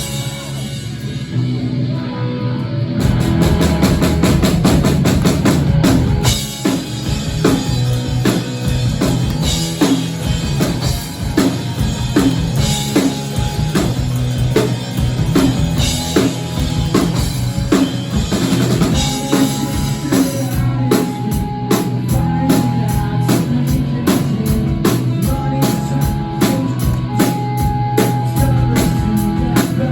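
Live rock band playing: guitar alone at first, then the drum kit comes in about three seconds in with a steady beat under guitars and bass.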